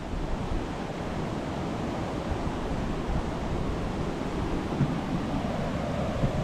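Steady rushing of a waterfall or river rapids, with wind buffeting the microphone and a few brief low bumps near the end.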